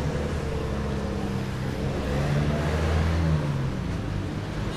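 Motor vehicle engine running at close range on the street, its low hum loudest two to three seconds in, then easing off, over general street noise.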